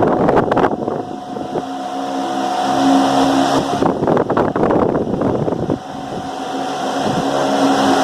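Ventisol 60 cm 200 W wall fan running: a steady motor-and-blade hum with a rushing of air, and twice, about four seconds apart, the airflow buffets the microphone and covers the hum for a second or so.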